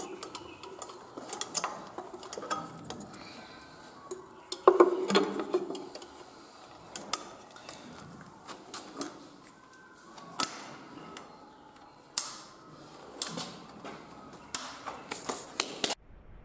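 Hands handling and closing the plastic air-filter housing on a Kirloskar power weeder's engine: scattered clicks and knocks, with a louder clatter about five seconds in.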